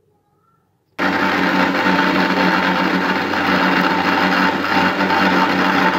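Electric mixer grinder (mixie) switched on about a second in, its motor running steadily as it blends watermelon chunks into juice in the jar.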